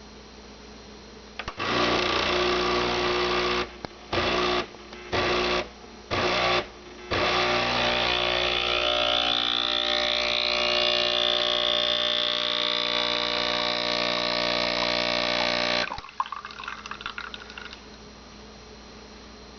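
Breville BES860XL espresso machine running with a loud mechanical buzz. It starts and stops in four short bursts, then runs steadily for about nine seconds before cutting off suddenly. A few faint clicks follow.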